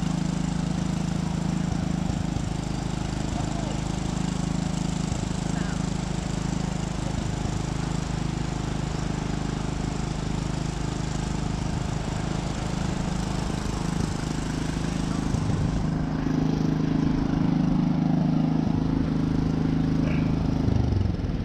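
An engine running steadily at an even pitch. Its note rises a little about sixteen seconds in and drops away near the end.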